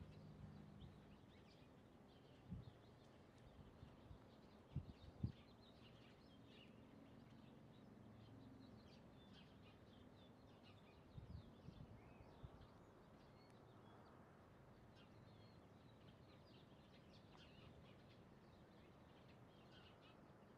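Near silence with faint bird chirps scattered throughout. A few brief low thumps break in, the loudest about five seconds in.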